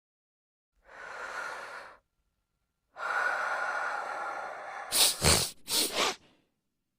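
A person's drawn-out, noisy in-breaths, two of them, then three short, sharp gasps about five seconds in: the catching breaths of a coming sneeze.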